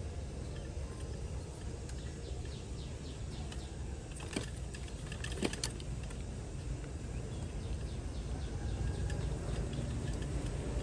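Steady low outdoor background rumble with faint scattered ticks, and two sharper clicks about four and five and a half seconds in.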